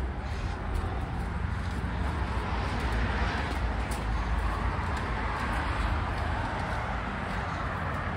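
Steady outdoor traffic noise from passing cars, a low rumble with a hiss above it.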